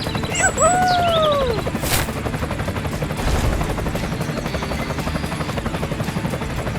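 Small motor of a DIY toy construction vehicle running with a fast, steady rattle. In the first second and a half come short gliding whoops, and there is one sharp click about two seconds in.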